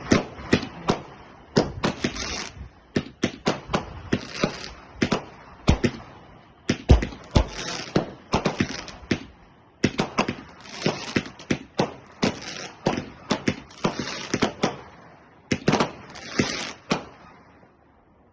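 Consumer firework battery (cake) firing: an irregular run of sharp bangs, several a second, mixed with hissing, crackling bursts, with a brief pause about nine seconds in.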